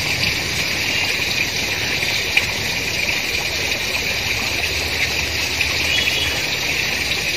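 Steady rush of flowing water, as at the overflow weir of a village pond, running evenly without a break.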